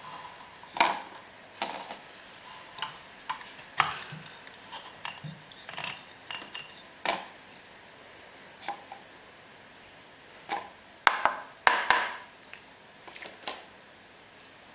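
Irregular clicks and knocks of hard objects being handled, a quick cluster of louder knocks about eleven seconds in.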